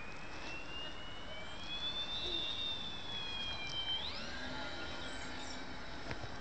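Whine of a small electric RC plane's outrunner motor and 8040 propeller flying overhead. The pitch rises slowly, sags, then jumps up sharply about four seconds in.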